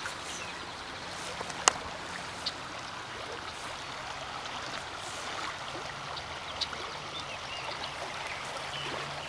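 Small creek running steadily, with a sharp click about a second and a half in and a few fainter ticks.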